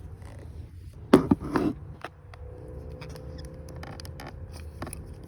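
De-pinning tool being worked into a plastic wiring-harness connector: small clicks and scrapes of metal on plastic, with a louder clatter of handling about a second in.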